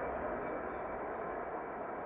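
Distant jet engines of a twin-engine airliner at takeoff thrust, a steady even roar as the aircraft rotates and lifts off.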